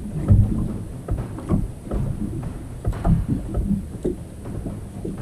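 Water slapping against a small boat's hull in a series of irregular low knocks and thumps.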